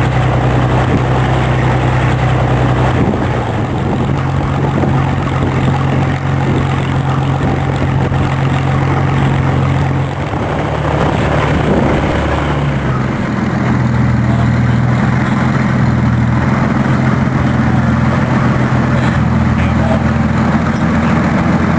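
Hawker Hurricane's Merlin V12 piston engine running steadily on the ground, propeller turning. Its low, even note shifts slightly about halfway through.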